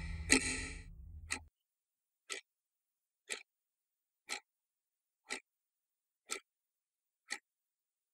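A clock ticking steadily once a second. For the first second and a half it sits under a low drone that then drops away, leaving the lone ticks.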